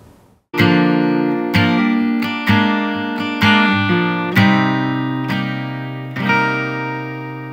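Outro music: acoustic guitar chords struck about once a second, each left to ring out, starting after a brief silence.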